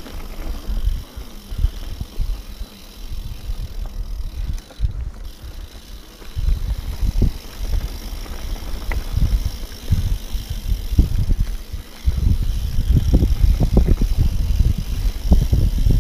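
Mountain bike riding over a dirt singletrack, heard from the bike: a low rumble with many clicks and rattles from the bike over rough ground. It grows louder about six seconds in and again about twelve seconds in.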